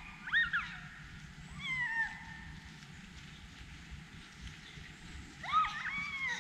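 Three high animal calls, each gliding up and then down in pitch: two short ones in the first two seconds and a longer, drawn-out one near the end.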